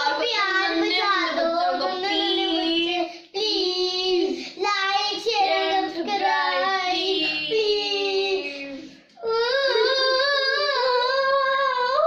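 Young girls singing without accompaniment, in long held phrases, breaking off briefly twice.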